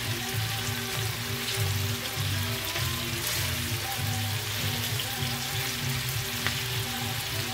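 Diced raw chicken sizzling steadily in oil in a large nonstick frying pan, being turned over a little at a time with a plastic spatula. A low hum runs underneath, breaking off and coming back every half second or so.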